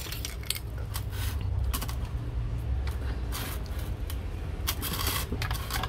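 Plastic parts of a hang-on-back aquarium filter being handled: scattered clicks and knocks, with two short rustling scrapes, over a steady low hum.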